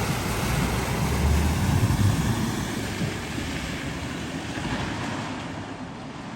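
A car driving slowly through deep flood water at a ford: a low engine rumble under a steady wash of water, loudest about one to two seconds in, then easing off.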